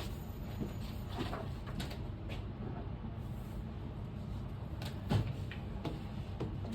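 A few light knocks and clunks of objects being handled and set down, the clearest about five seconds in, over a steady low hum.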